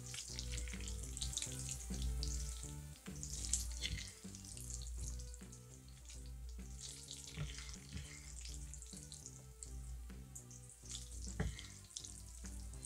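Chopsticks mixing and lifting thick jjajang noodles through sticky black bean sauce: irregular wet squishing and slapping, with one sharp click near the end, over soft background music.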